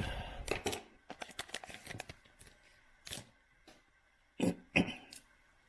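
A trading-card pack's wrapper being torn and crinkled open, with a dense run of crackles and rips in the first second or so. Scattered handling ticks follow, then two sharper knocks about four and a half seconds in.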